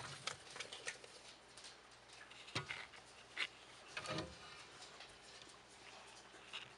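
Goins king snake coiling around a thawed mouse among enclosure décor: faint scattered rustles and scrapes, with two soft knocks about two and a half and four seconds in.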